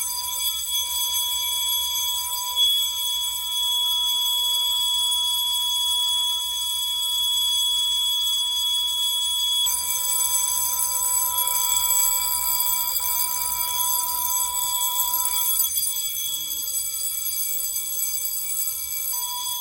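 Notifier NFS2-640 fire alarm control panel's sounder giving a steady, unbroken high-pitched electronic tone for a supervisory signal from a duct smoke detector tripped with a magnet.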